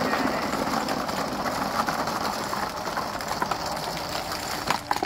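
A stream of small plastic balls pouring out of a plastic tub, clattering into a clear plastic jar and bouncing on the floor in a steady dense rattle.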